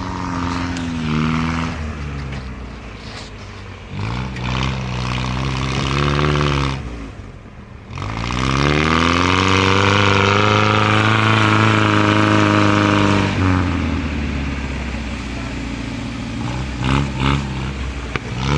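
Off-road vehicle engine revving hard in surges as the vehicle pushes forward to break river ice. The revs drop sharply about halfway through, climb again and are held high for several seconds, then settle lower.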